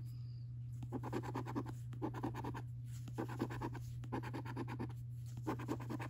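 A coin scraping the silver latex coating off a paper scratchcard: short bursts of rapid back-and-forth strokes, five of them with brief pauses in between, after a quiet first second. A steady low hum runs underneath.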